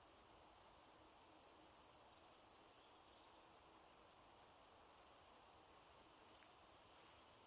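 Near silence: faint woodland ambience with a few soft, distant bird chirps about two to three seconds in.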